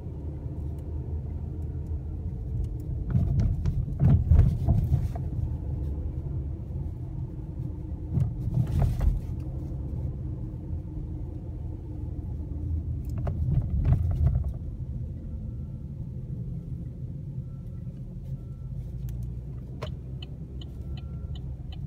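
Car cabin road noise: the steady low rumble of a car driving slowly along city streets, heard from inside. It swells with louder bumps and knocks a few times, around four, nine and fourteen seconds in, and a few light ticks come near the end.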